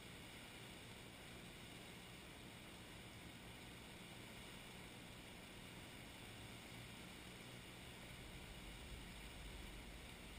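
Near silence: a faint, steady hiss, with a slight low rumble rising near the end.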